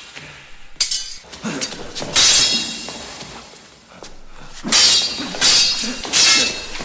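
Sword blades clashing in a duel: a run of sharp metal-on-metal strikes, each ringing briefly. Three or four come in the first two seconds, and another three come close together after a short lull near the middle.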